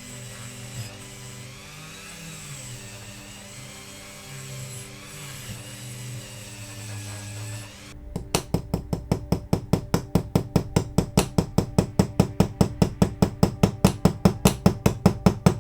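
A small electric wire-brush tool runs steadily on the diecast casting. About eight seconds in it gives way to rapid, even hammer taps, about five a second and growing louder, on the bent metal bumper to straighten it.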